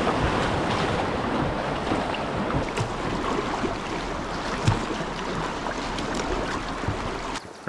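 Fast river water rushing around a small inflatable pontoon boat in whitewater, a steady loud rush with a few light knocks and some wind on the microphone. It stops abruptly near the end.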